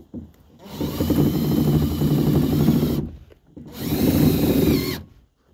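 Makita cordless impact driver running a screw into the kayak's plastic hull in two long runs, the second starting just under a second after the first stops, with a falling pitch as the second run winds down. The screws are pulling the rod holder's flange down tight onto the deck.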